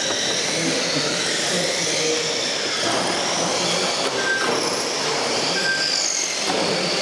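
Several electric RC touring cars racing on carpet, their motors whining high and rising and falling in pitch as they speed up and slow for the corners. The hall echoes, and a few short beeps come from the lap timing system: twice after the middle and once near the end.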